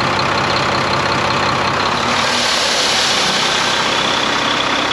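Volvo D13 diesel engine idling steadily, a rushing, breezy air noise over its low pulsing note. The owner traces this extra breeze to a seal left out after a repair.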